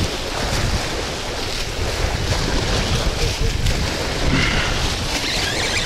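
Wind buffeting the microphone in a steady rumble, over small waves breaking and washing against a sloped concrete shore.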